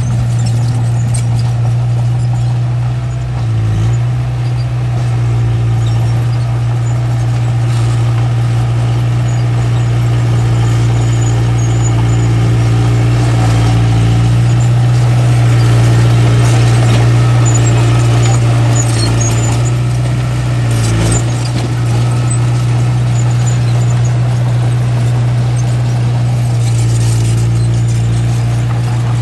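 Small bulldozer's diesel engine running steadily under load, its pitch dipping briefly twice.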